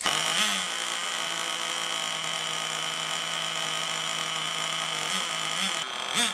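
Water-cooled nitro glow engine of an RC snowmobile running at a steady fast idle, with a few short revs: one about half a second in and two near the end.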